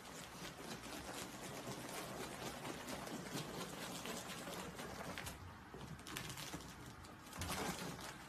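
Ferrets running and scrabbling through a clear, ribbed plastic hose: a rapid, dense clicking and rattling of claws on the corrugated plastic. There is a louder bump near the end.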